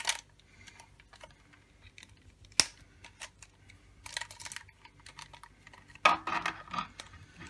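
Hard plastic toy wrist gadget being handled: scattered clicks and light clattering of its plastic parts and strap, with one sharp click about two and a half seconds in and busier rattling near the middle and end.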